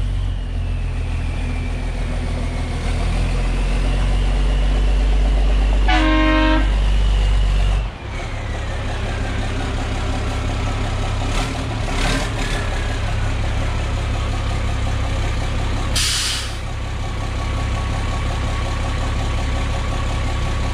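International 4900 truck's DT466 inline-six diesel engine running as the truck drives, growing louder over the first several seconds and then dropping off sharply about eight seconds in, before settling to a steady idle. A short horn toot comes about six seconds in, and a brief burst of air hiss, typical of air brakes, comes about sixteen seconds in.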